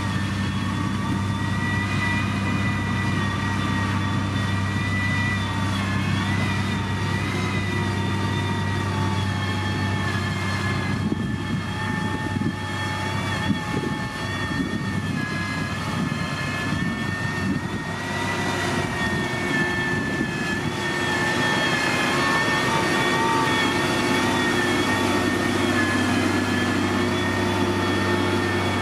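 Engine of heavy road-construction machinery running steadily, a low hum with a high whine over it, growing a little louder about two-thirds of the way through.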